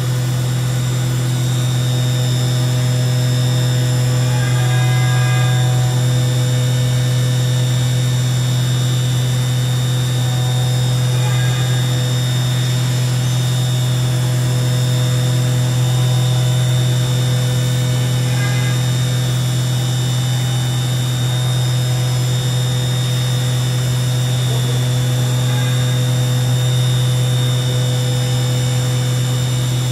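OKK VM5-11 vertical machining center running under power with a steady, loud mechanical hum. Fainter tones come and go every few seconds.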